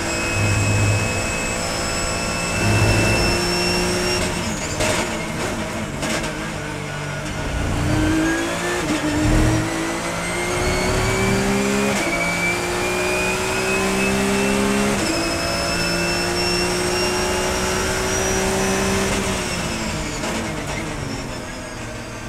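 Porsche 991 GT3 Cup race car's flat-six heard from inside the cockpit at speed. The engine note falls with a few sharp cracks about five seconds in, then climbs through the gears with two sudden upshift drops, and falls away again near the end.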